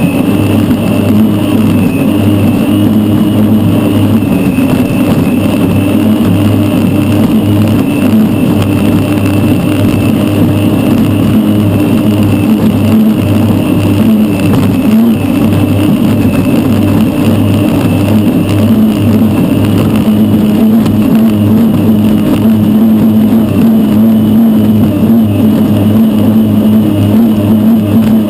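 Unlimited hydroplane's Lycoming T55 gas turbine running steadily at racing power, heard onboard: a steady low drone with a high whine on top, mixed with the rush of wind and spray.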